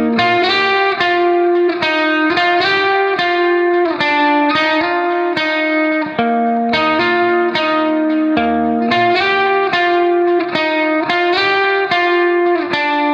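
Background music: a guitar picking out a melody note by note at a steady pace.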